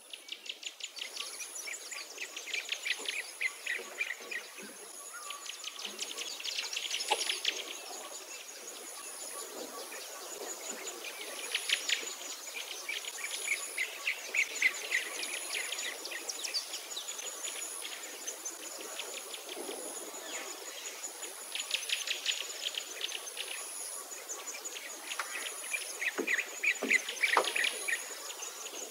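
Birds singing in bursts of rapid chirping trills, with a thin, very high insect-like buzz pulsing about once a second underneath.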